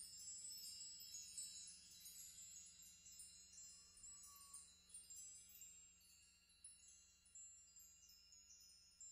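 Chimes tinkling in many overlapping high notes that slowly fade away.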